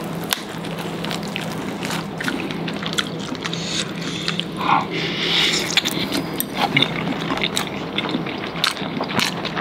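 Close-miked mouth sounds of two people biting and chewing sauce-covered takoyaki: smacking and chewing with many small clicks, louder for a moment about five seconds in, over a steady low hum.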